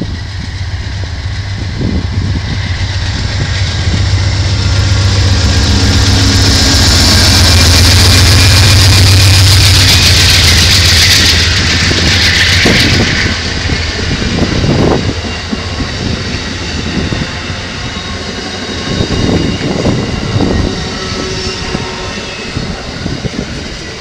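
Amtrak Pennsylvanian passenger train passing close by. The diesel locomotive's low engine hum and rushing noise build to their loudest about eight to ten seconds in, then the stainless-steel passenger cars roll past with a lower rumble and occasional wheel clunks over the rails.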